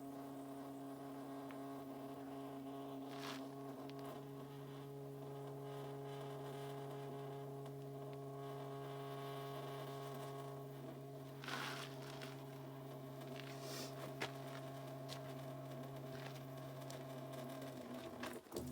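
A steady, even machine hum that holds one pitch and stops near the end, with a few brief hissy spurts over it.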